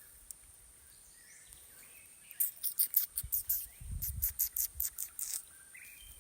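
Outdoor riverside ambience with a steady thin high insect drone. Midway a quick run of short, high, scratchy chirps lasts about three seconds, with a low bump among them.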